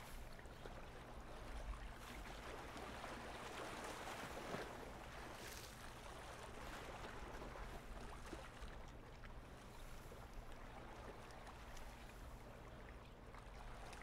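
Faint, steady lakeshore ambience: small lake waves lapping on a stony shore, with a low steady hum underneath.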